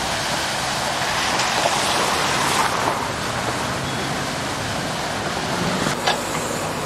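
Steady rush of floodwater running across a street, mixed with the sound of vehicles driving through it. A few sharp clicks come near the end.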